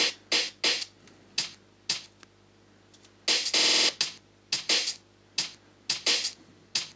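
Slices of a breakbeat sample triggered one by one in the Renoise tracker: short, sharp drum hits at irregular spacing, with one longer, noisier hit about three and a half seconds in, as the snare slice is being located.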